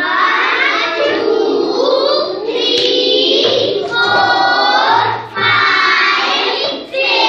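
A class of young children singing together in chorus, in phrases with short breaks.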